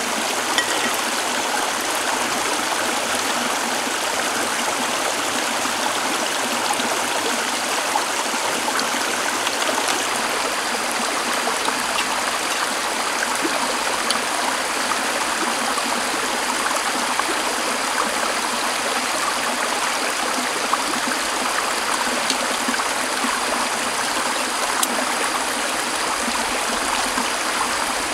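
Shallow stream running over rocks, a steady rush of water, with a few faint clicks from cookware being handled.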